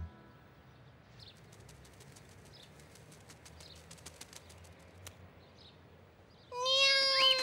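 Faint outdoor ambience with light ticks and small high twitters. About six and a half seconds in, animated cartoon birds break into a loud, drawn-out call that slowly falls in pitch, with a quick rising whoop in it.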